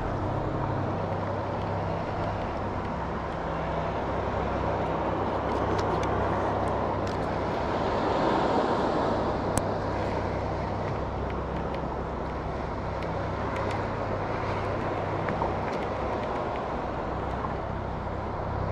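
A boat motor running steadily with a low hum, with a few faint clicks over it.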